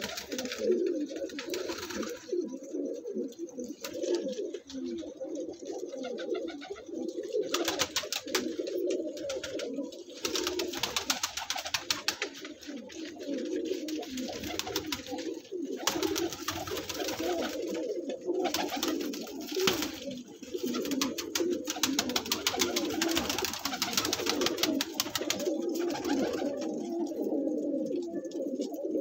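A flock of domestic pigeons cooing continuously, many calls overlapping, with small clicks and rustles scattered through.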